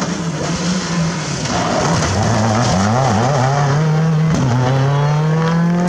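Rally car engine at full throttle as the car drives past, the revs climbing and dropping several times with quick gear changes, over tyre and road noise.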